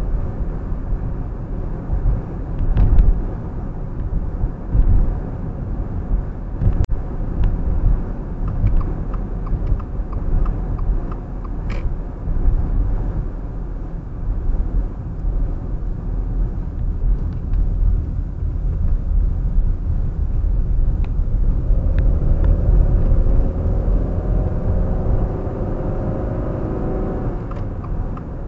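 Car driving along a road: a steady low rumble of tyres and engine, with a few faint clicks. A whine with several pitches rises and fades near the end.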